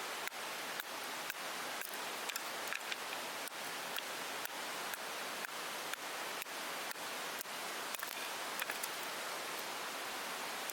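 Steady rushing hiss of a river, with irregular drips and ticks of water falling just after rain.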